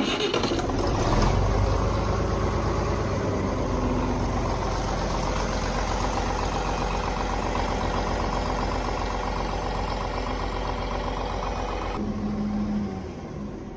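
John Deere 4020 tractor's six-cylinder engine starting up and idling steadily. Near the end it is shut off and runs down to silence.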